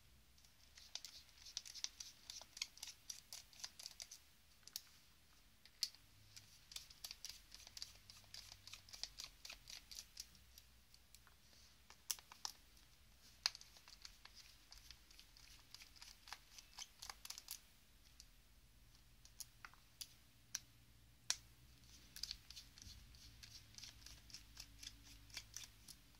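Faint rapid clicking and scratching of a small T6 Torx screwdriver turning screws out of an old BlackBerry's plastic back case. The clicks come in several runs of a few seconds each, with a few sharper single clicks between them.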